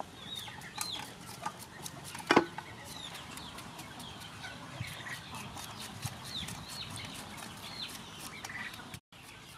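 Crisp cutting and scraping clicks as a cucumber is shredded and sliced with a metal shredder and knife, with one loud knock about two seconds in. Chickens call in the background with short, high, repeated calls.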